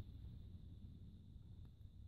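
Near silence: a faint steady low rumble, with no distinct crackles or twig snaps.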